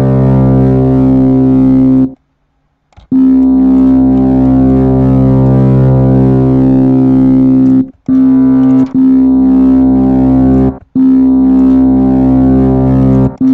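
Ableton Operator FM synthesizer sounding a sustained low note with many overtones and a slow, regular wobble in its tone. It cuts out for about a second near the start, then is played again several times with brief breaks between.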